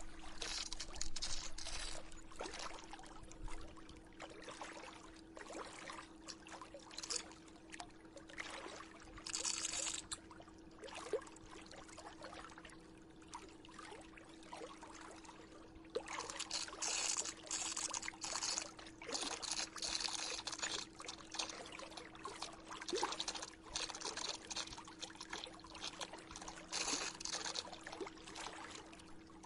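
Swimming pool filter system running: water pouring and trickling, swelling louder in stretches, over a steady low hum from the pump.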